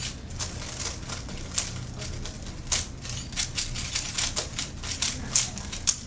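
Several plastic Rubik's Cubes being turned fast by hand: an irregular stream of sharp clicks and clacks as the layers snap round, several a second.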